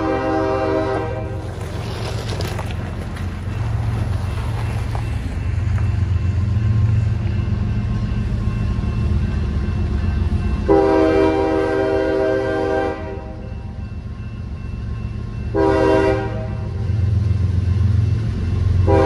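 CSX diesel locomotives' air horn sounding in blasts: one ending about a second in, a long blast near the middle, a short one, and another starting at the very end. Under it the locomotives' diesel engines and train keep up a steady low rumble.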